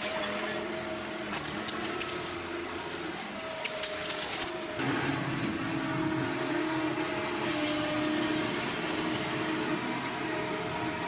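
Ponsse forestry harvester's diesel engine and hydraulics running under load while it fells a tree. The sound is steady, then grows louder and shifts in pitch about five seconds in.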